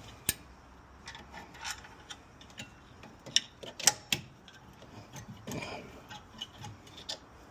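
Irregular metal clicks, clinks and a few sharper knocks as tools and rear brake caliper parts are handled, while the caliper bolts and slide pins are being worked loose. The loudest knocks fall just after the start and about four seconds in.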